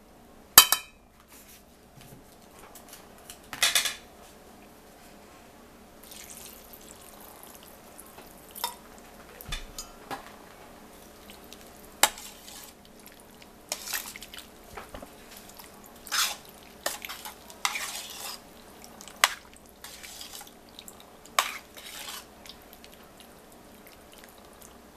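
A metal spoon stirring canned peas and egg noodles in a stainless steel pot, clinking and scraping against the pot's side at irregular moments.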